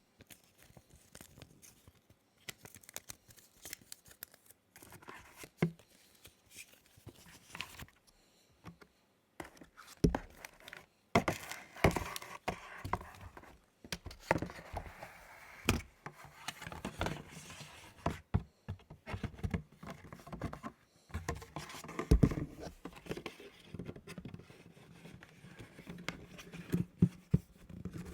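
Unboxing handling noise: packaging being torn and crinkled, with scraping and irregular sharp taps and knocks as the box and its contents are handled.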